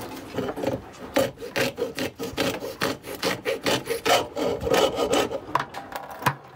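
Hacksaw cutting through an old sink drain pipe with steady back-and-forth strokes, about three a second.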